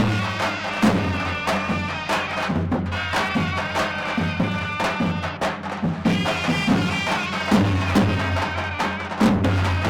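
Turkish folk music: a deep drum beating under a reedy wind melody.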